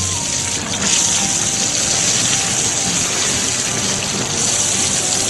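Steady rushing, hissing noise like running or gushing water. It grows a little brighter about a second in and again near the end.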